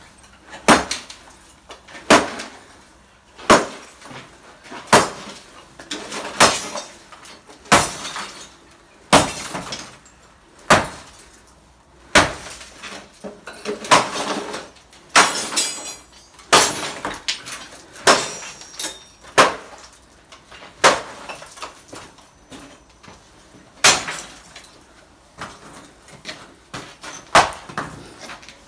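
Sledgehammer blows smashing broken concrete blocks on a rubble pile, a sharp crack about every one and a half seconds, each followed by a short clatter of breaking pieces.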